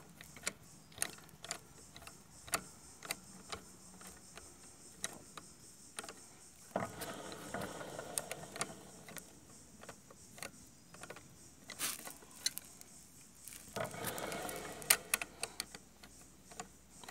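Socket ratchet wrench clicking as it turns the adjusting nut of a new rear brake cable at a scooter's drum brake arm, tightening the cable: a run of sharp clicks, about two a second, with two longer, busier spells of ratcheting about seven and fourteen seconds in.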